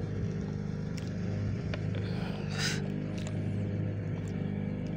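An engine on the boat running steadily with a low, even hum. About two and a half seconds in there is a brief hiss, like a splash, and a few light ticks.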